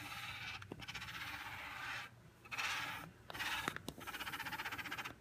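A Mag-Float magnetic algae cleaner dragged across aquarium glass in three scraping strokes, a rasp with a fast fine chatter in the last stroke. Its bladed edge is gliding over hard green spot algae without taking it off.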